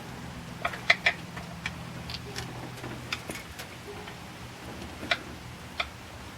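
Irregular sharp metallic clinks and taps of hand tools on metal parts while the old water pump is being worked off an engine, about a dozen in all, the loudest about a second in. A faint steady low hum lies under the first half.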